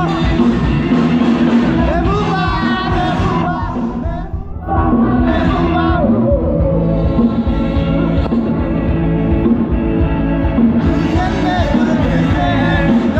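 Loud club music with a singing voice and a steady beat, with crowd noise and voices under it. It briefly drops out about four seconds in.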